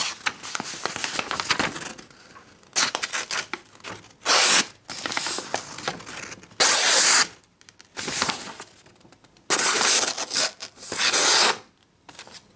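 The plain-edge blade of a SOG PowerPlay multitool slicing through paper in about eight separate strokes, each a rough tearing rasp. The blade is not very well sharpened.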